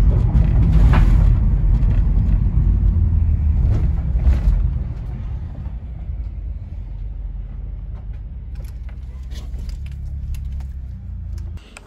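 Low rumble of engine and road noise inside a moving van's cabin. It is loud for the first few seconds, turns quieter and steadier about five seconds in, and drops away just before the end.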